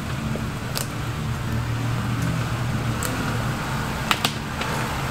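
Off-road vehicles crawling over a rocky trail at low engine speed, with a lifted Ford Bronco passing close. The engines run with a steady low hum, and a few sharp clicks and knocks sound as the tyres go over the stones.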